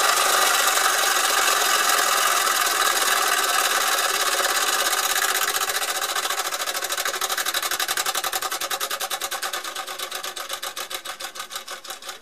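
Small 1906 Fritz Neumeier live-steam toy engine running down with its burner out: a fast, steady chuffing that gradually slows into separate beats and fades as the steam pressure drops.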